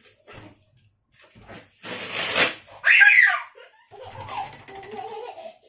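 People laughing, with a breathy burst of laughter about two seconds in and a loud high squeal just after, then softer laughing voices.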